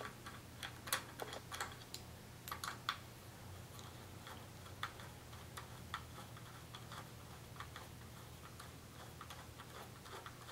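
Faint, irregular light clicks and ticks as a hex-bit screwdriver backs out the steel screws of a Manfrotto 502 fluid head's top plate, the bit and screws clicking on the metal plate.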